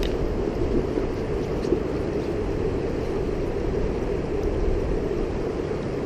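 Steady rush of fast, high creek water running over rocks and riffles.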